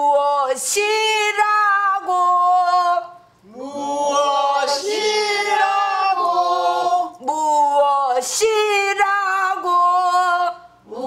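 A woman singing pansori in the slow jinyangjo rhythm, solo, in long, wavering phrases with short breaths between them. She accompanies herself on a buk barrel drum, with a few sharp stick strokes marking the beat.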